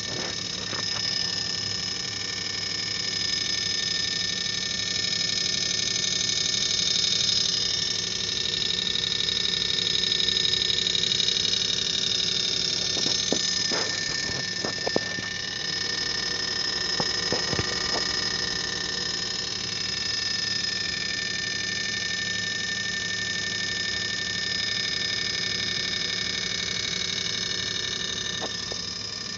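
Failed LG linear refrigerator compressor running with a steady, harsh rattling buzz made of several fixed pitches, with a few sharp knocks about halfway through. The rattle is the noise of the failed compressor.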